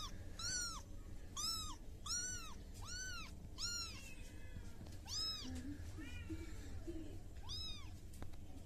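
A young kitten meowing over and over: about eight short, high-pitched mews, each rising and falling in pitch, coming quickly at first and then more sparsely.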